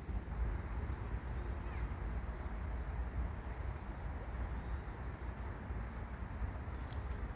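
Wind blowing steadily against the microphone, a continuous low rumble with a rushing hiss, and a few faint bird chirps above it.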